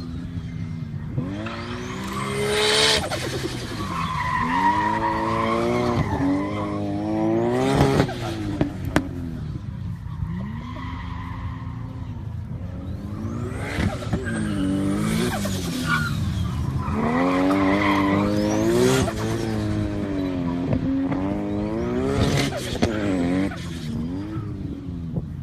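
Turbocharged car engine revved hard several times, its pitch climbing and then dropping back each time. At each lift-off of the throttle comes a short noisy chatter, the turbo flutter ("stututu") of compressor surge as the throttle closes.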